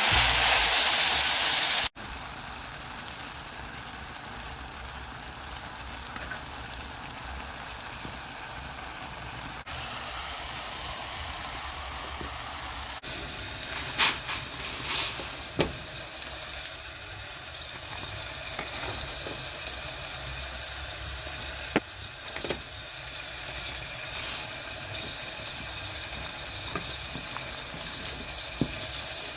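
Food frying in a pan, a steady sizzle that is louder for the first two seconds, with a few sharp clicks of a utensil against the pan as it is stirred.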